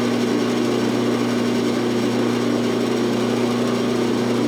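Drill press running steadily with a hole saw boring into a piece of wood, a constant motor hum.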